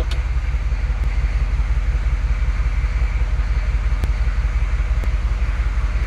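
Chevrolet 6.5-litre Detroit IDI V8 diesel idling with a steady, even low pulse, heard from inside the cab. Faint ticks come about once a second.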